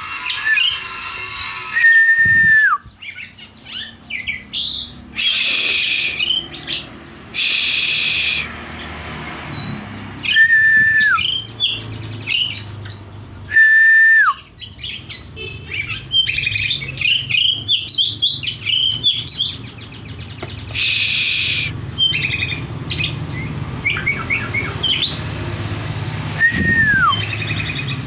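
Oriental magpie-robin in full song: clear whistled notes that slide downward, quick runs of chirps, and a few harsh rasping bursts.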